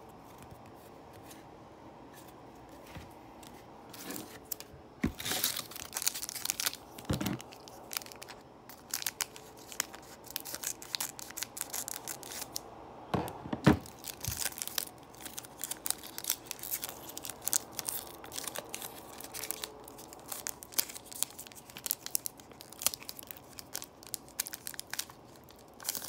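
Foil wrapper of a Panini Score football card pack crinkling and tearing open, along with cards being handled. It is faint for the first few seconds, then becomes a dense run of crackles.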